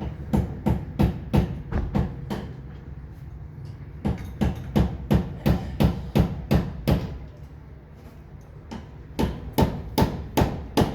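Hammering: three runs of sharp blows, about three a second, with short pauses between the runs, over a steady low hum.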